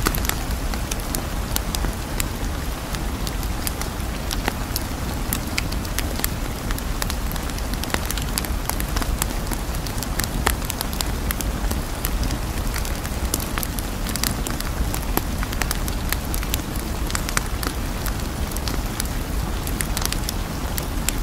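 Steady ambient hiss with many scattered sharp crackles, a rain-like or fire-like background sound bed.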